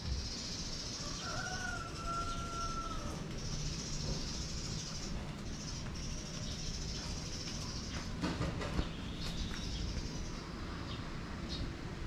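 Outdoor background sound: a steady low rumble under a high, hissing buzz that comes and goes in stretches of a second or two, with a short whistle-like tone about a second in.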